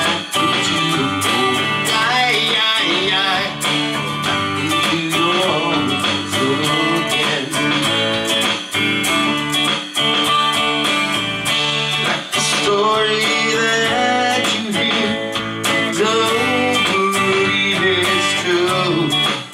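A man singing a country song while strumming an electric guitar in a steady rhythm.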